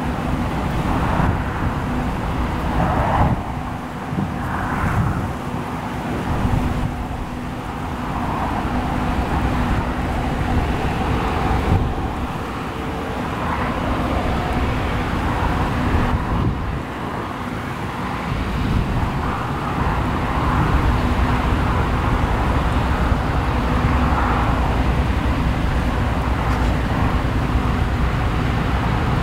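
Claas Lexion 600TT combine harvester running steadily while cutting oilseed rape, its engine and threshing gear making a loud, continuous drone that swells and dips a few times.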